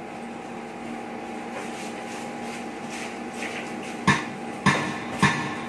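Faint steady hiss and hum from the karaoke sound system. About four seconds in come three sharp, evenly spaced clicks about half a second apart: the count-in at the start of a karaoke song track, keeping time with the song that follows.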